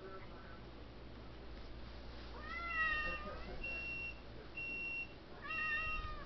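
Tabby cat meowing: two drawn-out meows, about two and a half seconds in and again near the end, with a few short, thin, steady high notes between them.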